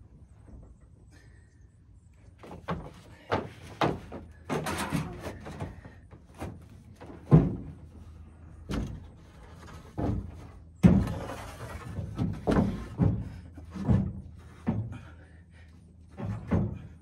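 Wooden boards knocking and scraping against a pickup truck's bed and canopy as they are shifted into place. About a dozen irregular knocks come from about two seconds in, the loudest two about seven and eleven seconds in, with a scraping slide around five seconds and another just after the eleven-second knock.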